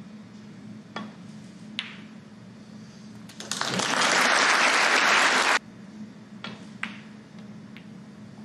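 Snooker cue striking the cue ball about a second in and a sharp click of ball on ball shortly after, then audience applause for about two seconds that cuts off suddenly. Two more ball clicks follow near the end.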